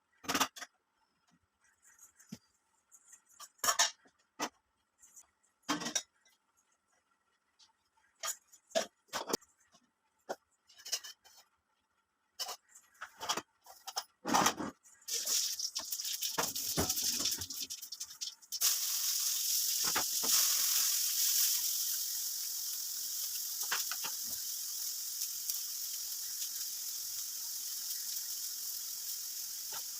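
Kitchen utensils clicking and knocking, then about halfway through frying starts: a steady sizzle of food in hot oil, which jumps louder a few seconds later and keeps going.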